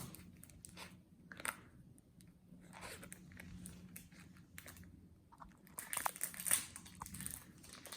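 Foil wrapper of a trading-card pack crinkling and tearing as it is opened by hand, in scattered crackles that get busier near the end.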